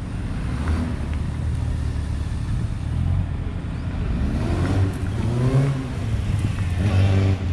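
Yamaha XJR1200's air-cooled inline-four motorcycle engine revving up and down in short throttle bursts through a tight slalom, its pitch rising and falling several times and loudest near the end.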